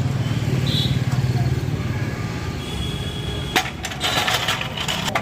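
A sharp metallic click about three and a half seconds in, then rattling and scraping of metal, over a steady low hum.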